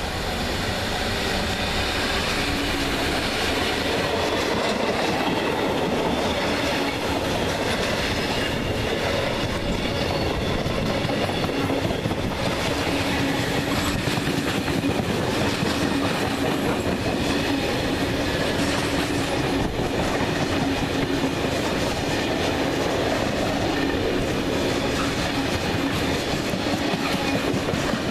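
Class 66 diesel locomotive passing close by at the start, followed by a long rake of freight wagons loaded with rails rolling past at speed: a steady, continuous rumble of wheels on track.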